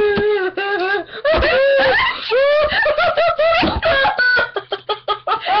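Girls laughing in high-pitched, wavering squeals and whimpers, in many short bursts with brief breaks.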